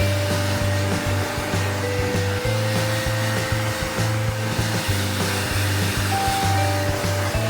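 Hair dryer blowing steadily on a dog's coat after a bath, with background music over it.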